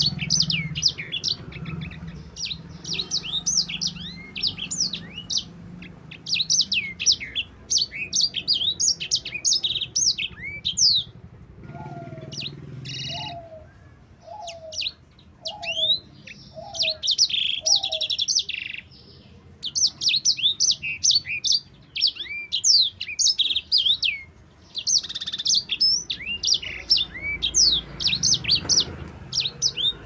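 Caged sanger (grey singing finch) singing a long, fast rolling song of high chirps and trills, broken by short pauses twice. In the first pause a lower note repeats six times, about once a second.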